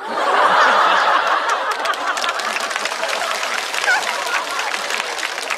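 Studio audience bursting into loud laughter at a stand-up punchline. Clapping joins in after about two seconds and carries on as the laughter eases.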